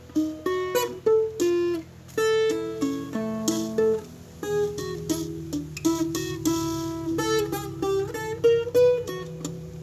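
Viola caipira picking an instrumental melody between sung verses, a quick run of plucked notes.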